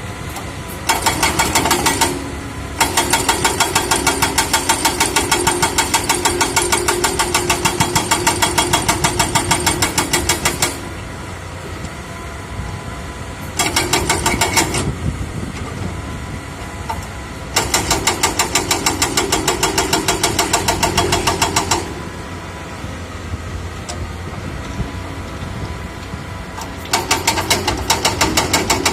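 Excavator engine running steadily, broken by spells of rapid, even hammering at about nine or ten blows a second, lasting from one to about eight seconds with short pauses between.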